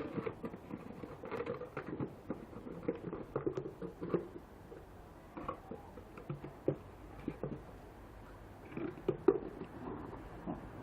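A dog moving about, making irregular light taps and scuffles, with one sharper tap about nine seconds in.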